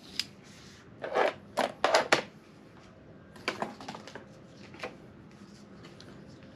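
Short clicks, taps and rustles of hands handling things on a workbench. They come in quick clusters about one to two seconds in and again around three and a half seconds in, with a few scattered ticks after.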